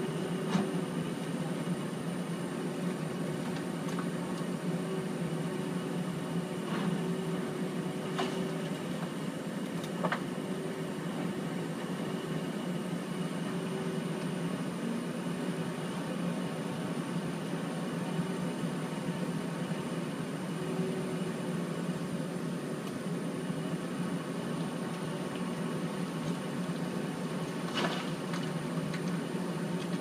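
Feller buncher's diesel engine running steadily, heard from inside its cab, with a few brief knocks from the working machine.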